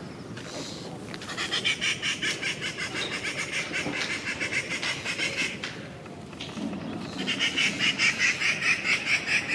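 Rufous treepie calling in rapid runs of repeated notes, about four a second: one long run, a pause of about a second, then a second, louder run near the end.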